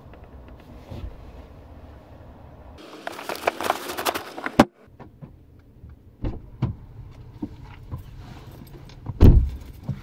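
Rattling, jingling handling noise for about a second and a half, ending in a sharp click, with a few light ticks afterwards and a dull thump near the end.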